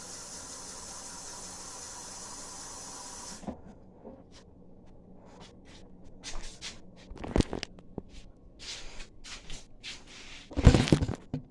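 Water running steadily from a tap, shut off suddenly about three and a half seconds in; then scattered clicks and knocks of kitchenware being handled, with one louder thump near the end.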